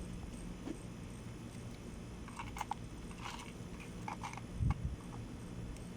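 Light clicks and taps from hand work on an air conditioner during a capacitor replacement, over a steady low hum, with a dull thump about three-quarters of the way through.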